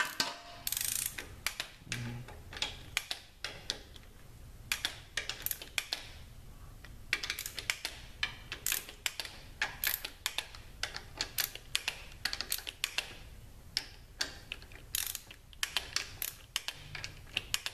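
Inch-pound torque wrench ratcheting and clicking in quick runs of sharp clicks as the valve-body bolts of a Subaru Lineartronic CVT are rechecked to about 90 inch-pounds.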